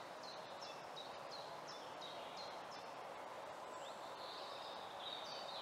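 Woodland ambience: a songbird repeating short, high notes that step down in pitch, about three a second, with a longer trill about four seconds in, over a steady rushing background.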